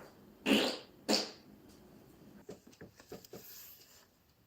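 Two short farts about half a second apart, followed by a few faint clicks.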